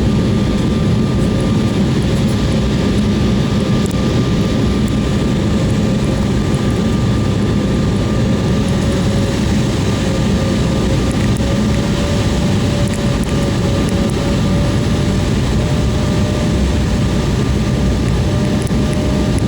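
Airliner engine noise heard inside the passenger cabin: a loud, steady drone and rush with a faint whine that slowly rises in pitch.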